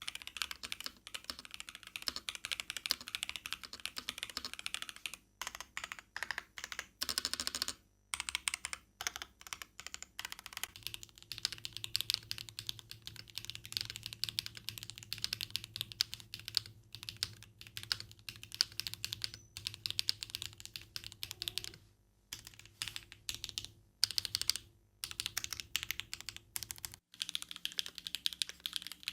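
Typing on a KBDfans Margo custom mechanical keyboard: quick runs of keystrokes, clicking and clacking, broken by short pauses.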